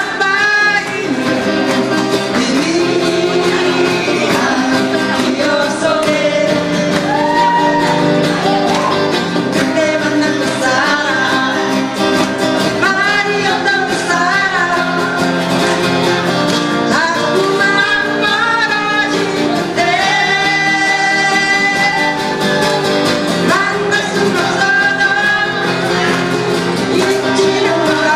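Live trot song: a group of acoustic guitars strummed together under singing voices, sung into microphones and amplified through a small speaker.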